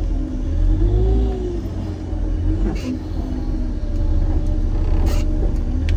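A snow-clearing loader's engine running under load, heard from inside its cab: a heavy low rumble whose pitch swells and eases a few times as the machine creeps backwards up a steep grade. There are two brief knocks, about three and five seconds in.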